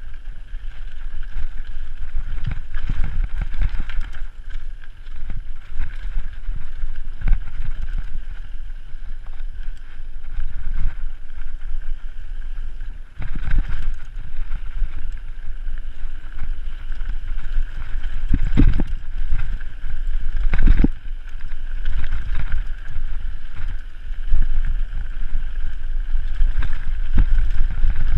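Mountain bike descending a rough dirt singletrack: wind buffeting the microphone with a low rumble, and the bike jolting and rattling over bumps and rocks, with the hardest knocks about 18 and 21 seconds in.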